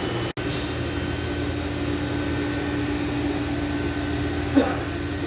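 Steady mechanical hum with a steady low tone, like a running fan or air-conditioning unit, broken by a brief dropout just after the start and a short faint knock near the end.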